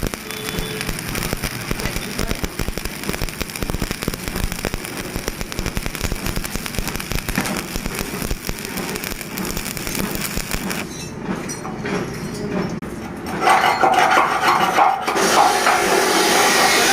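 Steady crackling and sizzling of electric arc welding on mild steel. About thirteen seconds in, a louder sound takes over.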